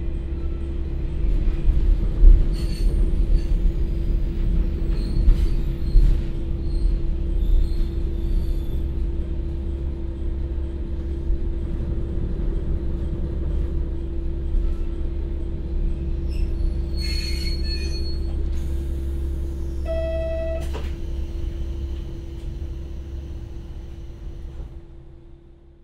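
Inside a JR Kyushu KiHa 40-8000 diesel railcar with a Komatsu SA6D125HE-1 diesel engine, running slowly and braking to a stop at a station: a steady low engine and running-gear rumble with scattered wheel and rail clicks, and a brief high brake squeal about two-thirds of the way in. A short pitched tone sounds just after, and the sound then fades out.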